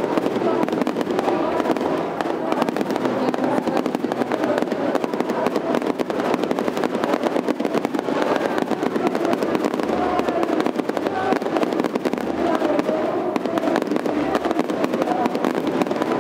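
Fireworks finale barrage: a dense, unbroken run of shell bursts and crackling, many reports a second with no pause.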